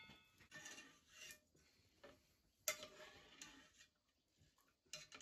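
Near silence with scattered faint clicks and light taps, the sharpest about two and a half seconds in.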